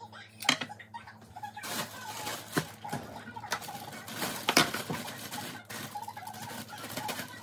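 A sharp knock about half a second in, then a plastic bag of seasoned fries crinkling as it is handled and snipped open with kitchen scissors, with several sharp snips and clicks among the rustling.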